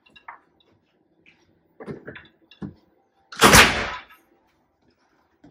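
A hotel room door: a few small clicks and knocks, then one loud shutting sound about three and a half seconds in.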